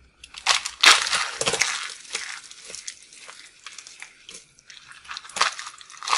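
Dry soap crunching and crackling as a starch-coated heart of rolled soap roses is snapped and crumbled by hand. It is loudest about a second in, then comes in smaller crunches, with another loud burst near the end.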